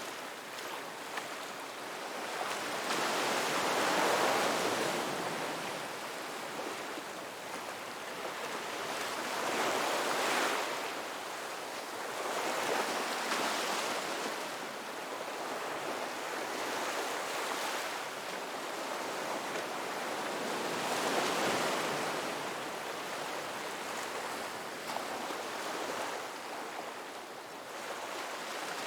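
Ocean waves breaking on a beach: a continuous surf wash that swells and ebbs, with a wave peaking every three to five seconds.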